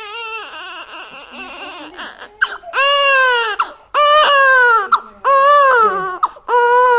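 Newborn baby crying: quieter, broken fussing at first, then from about three seconds in a run of loud wails, each just under a second long and arching up then down in pitch, coming about once a second.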